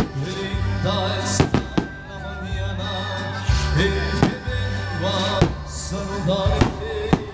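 Live band music with a steady, sustained bass line and melody. It is broken by about eight sharp, loud cracks that fall at irregular moments.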